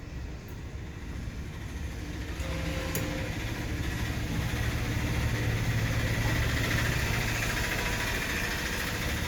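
A motor or engine running steadily with a low hum and a hiss, growing louder about two seconds in.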